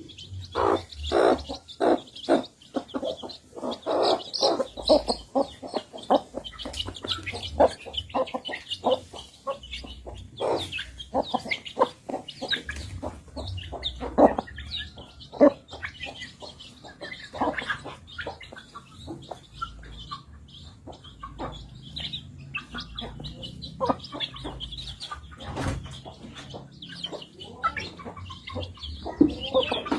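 Chickens clucking and chirping as they feed: a dense, uneven run of short clucks with high peeps scattered through.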